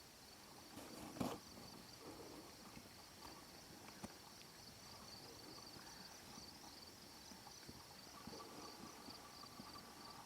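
Faint, steady high-pitched insect trill with a fine pulsing rhythm, broken by a single sharp knock about a second in.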